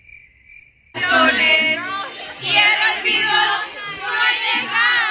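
Faint cricket chirping, a steady pulsing high trill, cut off about a second in by a group of young women singing loudly and excitedly along with music.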